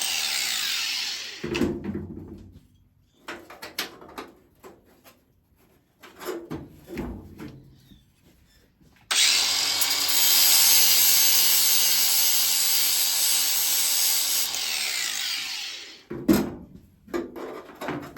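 A handheld rotary power tool works on the car body's sheet steel in two loud runs: one stops about a second and a half in, the other starts suddenly about nine seconds in and spins down near the end. Knocks and clatter of metal and tools fall in the gaps between the runs.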